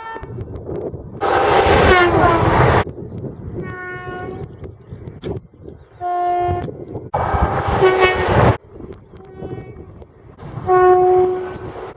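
A series of about six short train horn blasts, each a steady multi-tone note that starts and stops abruptly, cut together one after another, over the low rumble of trains running on the track.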